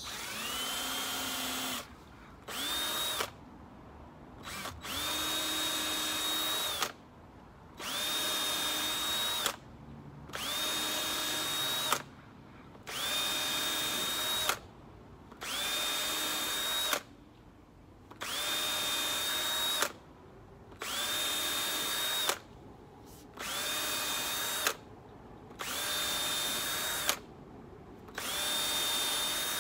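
Cordless drill pre-drilling a row of pilot holes: about a dozen short runs, each rising quickly to a steady whine, then stopping for a moment before the next hole.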